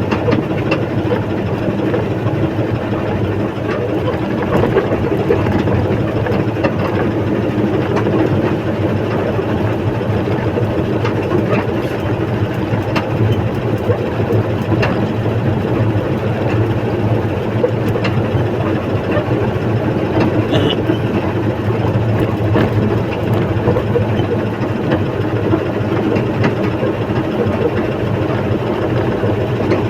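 A heavy engine running steadily at an even speed, with no change in pitch.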